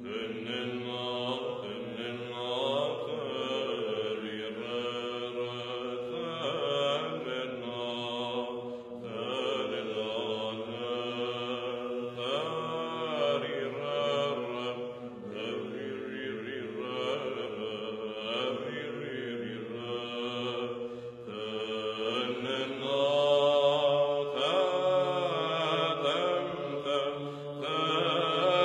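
Orthodox Byzantine-style chant: male voices singing a slow, melismatic melody over a steadily held low drone note.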